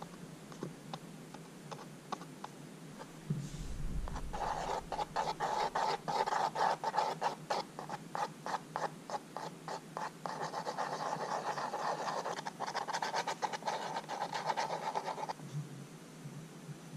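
A thin stick stirring and scraping acrylic paint on a piece of cardboard, mixing it in quick, uneven strokes. The scraping starts about four seconds in and stops a little before the end.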